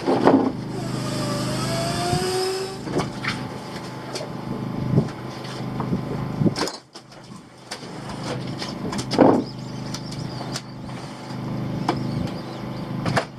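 A boat's engine running steadily, with scattered knocks and clicks over it.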